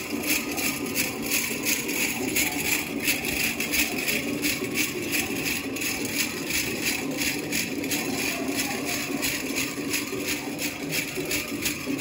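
Powwow drum song with a steady beat, and the metal jingle cones of a jingle dress shaking in time with the dance steps.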